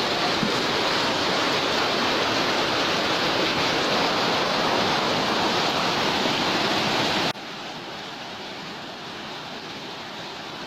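Loud, steady rush of water. About seven seconds in it cuts suddenly to a quieter, similar rushing.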